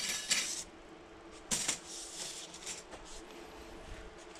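Light clicks and rattles of bicycle spokes being picked up and handled, with one sharper click about a second and a half in.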